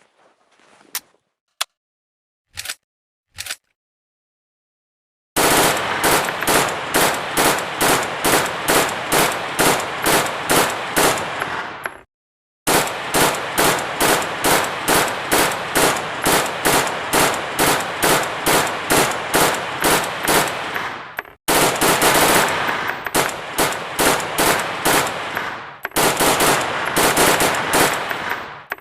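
Japanese machine gun sound effect: a few single shots, a pause, then long runs of evenly spaced shots at about two to three a second, an unusually slow rate that fits a slowed-down playback, broken twice by brief stops.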